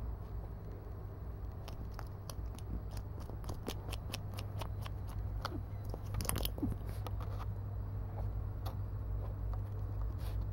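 A cat biting and clawing at a hard plastic gacha capsule: a quick run of sharp clicks and scrapes, with a louder flurry about six seconds in, then only a few scattered clicks.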